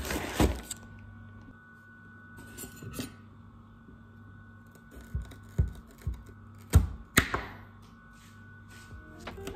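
A small knife cutting carrots on a wooden chopping board: irregular knocks and taps of the blade striking the board, the loudest a pair about seven seconds in. A faint steady hum runs underneath.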